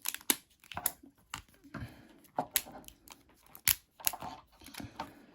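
Scissors cutting through a toy box's packaging and sellotape: a string of irregular sharp snips mixed with plastic and cardboard crinkling, hard going.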